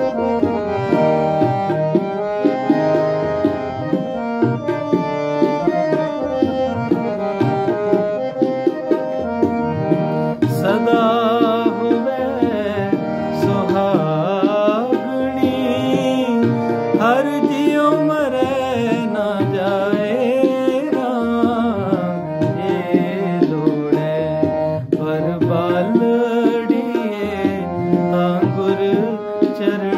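Harmonium playing a Gurbani shabad melody in D# over tabla keeping dadra, a six-beat cycle.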